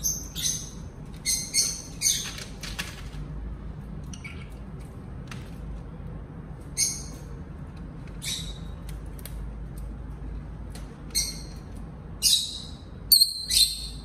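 Rosy-faced lovebirds giving short, shrill squawks and chirps in quick bursts while squabbling over a water dish, the loudest calls near the end.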